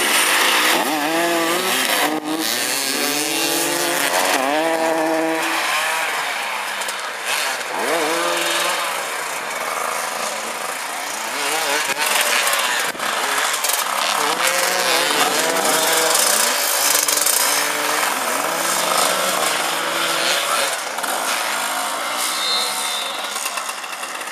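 Several dirt-motorcycle engines revving up and down over one another, their pitch rising and falling every second or so as the riders accelerate and slow.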